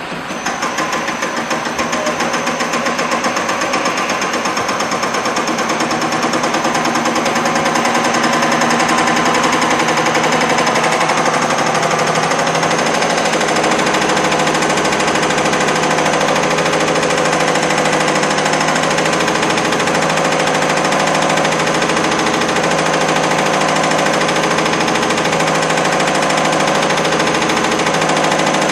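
BC CR708 common rail injector and pump test bench running: a fast, even mechanical clatter with a steady hum, building up over the first several seconds and then holding steady.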